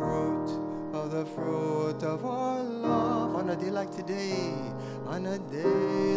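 A man singing a ballad while accompanying himself on a grand piano, his voice gliding between held notes over the piano chords.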